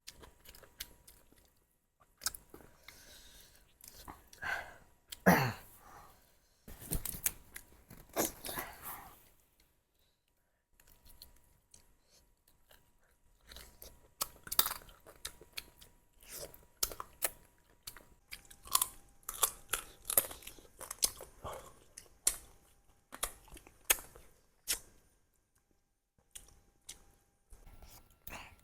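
Close-miked chewing and biting of spicy duck curry: a run of wet, crunchy mouth clicks and smacks, pausing briefly about a third of the way in and again near the end.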